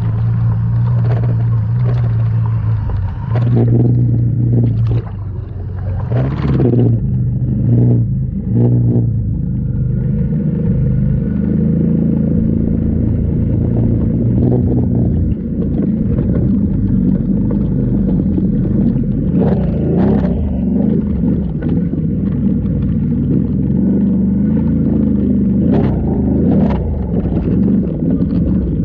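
Motor of a vehicle carrying the camera, running steadily through water and then grass. Its pitch steps up about ten seconds in and wavers after, with a few sharp knocks along the way.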